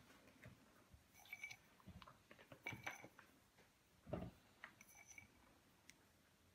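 Near silence with a few faint light taps and soft rustles from whole almonds being set by hand onto the glaze of a colomba; the clearest tap comes about four seconds in.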